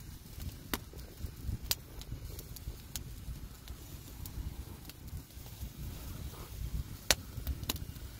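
Wood fire crackling in a fire pit: irregular sharp pops, the loudest about seven seconds in, over a steady low rumble.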